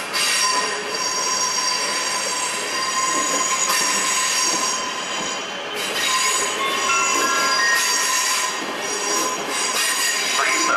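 Passenger multiple-unit train running slowly into the platform, its wheels squealing in several high, shifting tones over a running rumble. The squeal breaks off briefly about six seconds in, then returns.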